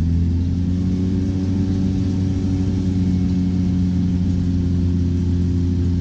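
Rinnai tankless gas water heater running with hot water drawn: a steady hum from its fan and burner that rises slightly in pitch over the first second, then holds. It runs smoothly now that a descaling flush has cleared the scale buildup that had made it noisy, and it sounds 100 times better.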